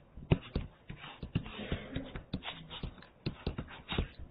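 Irregular sharp clicks and taps with brief scratchy strokes, from lines being drawn on a digital whiteboard.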